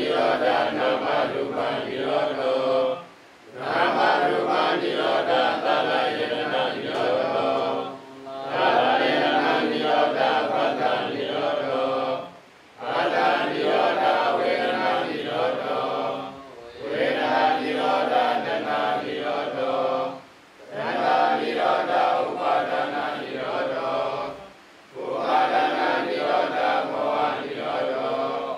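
Buddhist monks chanting together in unison, a steady group chant in phrases of about four seconds, each broken by a short pause for breath.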